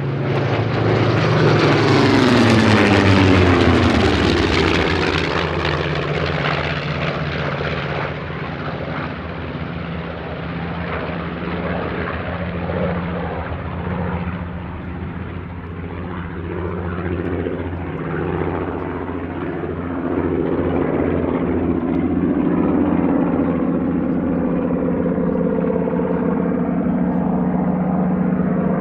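Two piston-engined WWII fighters, the radial-engined Focke-Wulf Fw 190 A-8 and a V12-engined Spitfire, flying a low dogfight display. A loud close pass early on, its engine pitch falling as the aircraft go by, then the engines drone on as the pair circle, growing louder again about twenty seconds in.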